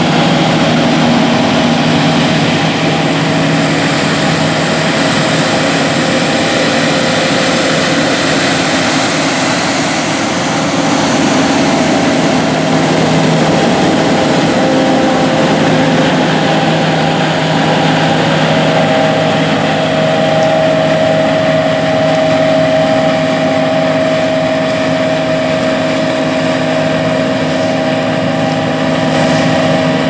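John Deere S670 combine harvesters working through standing wheat: a steady diesel engine drone with several steady humming tones from the machines over a rushing noise of threshing and cutting.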